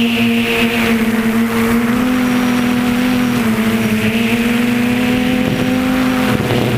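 Brushless motors and propellers of an F330 quadcopter buzzing steadily, heard from the onboard camera, the pitch shifting up and down a few times as the throttle changes.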